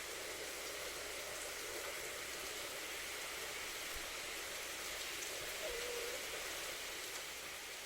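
Steady hiss of rain falling. A brief faint wavering call is heard about six seconds in.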